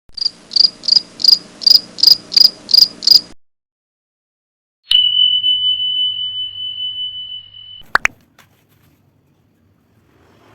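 A series of nine short, high chirps at an even pace of nearly three a second. After a pause, a single steady high ringing tone fades over about three seconds and is cut off by a brief sharp sweep.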